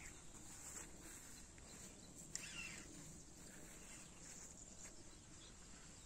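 Near silence with a faint, steady high-pitched insect drone, and one sharp click about two and a half seconds in.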